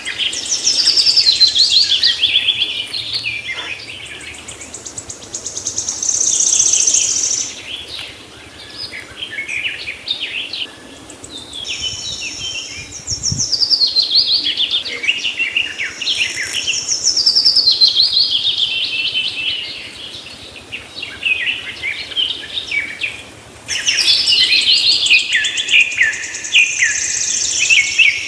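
Songbirds chirping and singing: busy phrases of quick high notes, often in fast falling runs, with short lulls between bursts.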